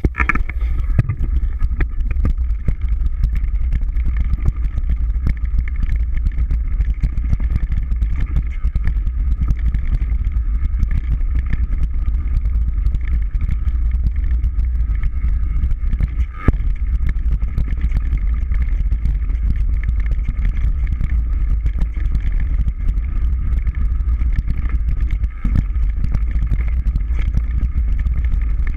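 Mountain bike rattling at speed down a rocky forest trail, heard through a bike-mounted camera: a constant low rumble of vibration and wind on the microphone, thick with clatter and sharp knocks from the rough ground, over a steady high buzz.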